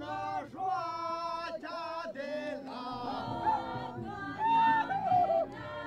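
A group of voices singing a song together in chorus, holding long notes. About three seconds in it cuts to different singing, with one voice briefly louder.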